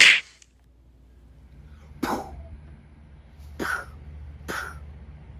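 A person making short, breathy voice sounds: a loud one at the start, then three shorter, quieter ones spaced a second or more apart.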